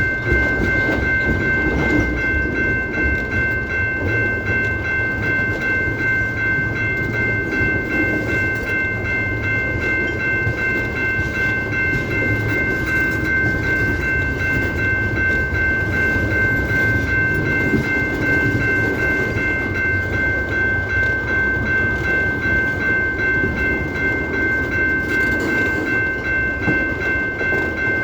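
Railroad cars rolling past with a steady rumble and a faint repeating wheel clatter, with an unchanging high-pitched whine over it.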